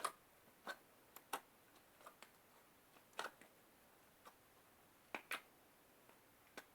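Blue slime being squeezed and kneaded by hand, giving faint, short clicks and pops at irregular intervals.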